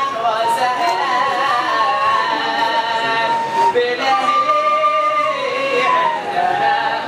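A male voice singing Hadhrami religious inshad in long, ornamented held phrases, with a short break about four seconds in.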